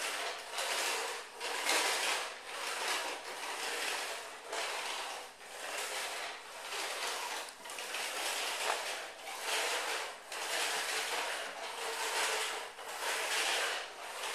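Vacuum cleaner running and being pushed back and forth, its hiss swelling and fading about once a second with each stroke.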